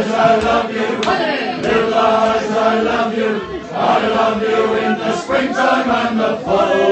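A crowd of people singing a song together, many voices at once on held notes.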